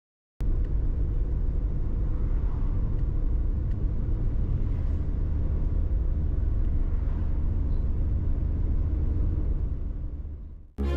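Suzuki Alto Lapin kei car driving on a paved road, heard from inside the cabin: a steady, loud low rumble of engine and road noise. It starts abruptly about half a second in and fades out near the end.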